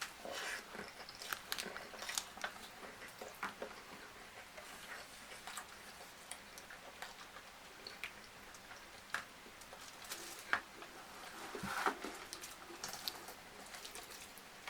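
Close-miked mouth sounds of a person chewing food: irregular wet clicks and smacks. The loudest comes about ten seconds in, with a quick cluster just after it.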